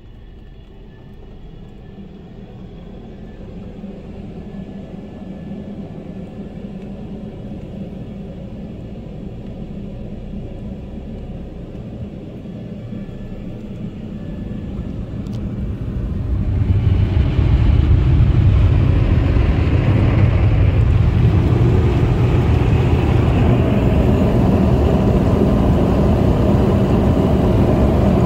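Overhead electric blower dryers of a touchless car wash starting on a slow-speed startup, a low hum that builds gradually, then about 16 seconds in coming up to full speed: a loud, steady rush of air blasting over the car, heard from inside the car.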